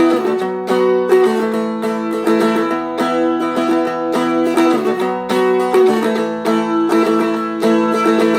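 Seagull Merlin, a small four-string dulcimer-style instrument, strummed in a quick, even rhythm through a simple E, B and A chord pattern, with its strings ringing on steadily under the strokes.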